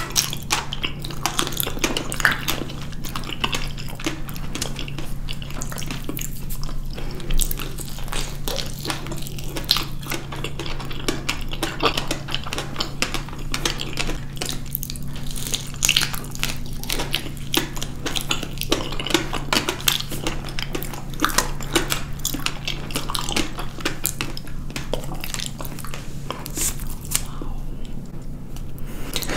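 Close-miked ASMR eating: two people biting and chewing soft fresh figs, a continuous run of small wet mouth clicks and smacks, with a steady low hum underneath.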